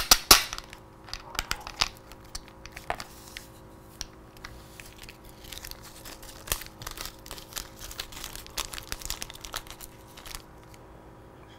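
Close handling noises: crinkling and tearing with many irregular light clicks, as a strip of tape and small bolts and washers are handled. The clicks die away about ten seconds in.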